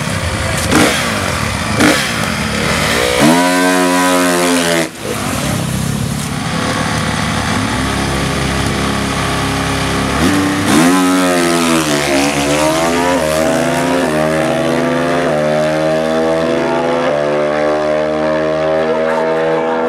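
Drag-racing engine revving: a few short blips, then a rev that cuts off sharply about five seconds in. From about eleven seconds in it accelerates hard, its pitch climbing in steps through several gear changes.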